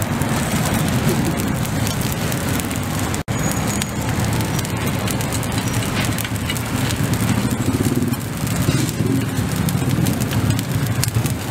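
Busy street-stall ambience: a steady hum of traffic and background voices, with fine crackling from the charcoal grill. The sound drops out for an instant about three seconds in.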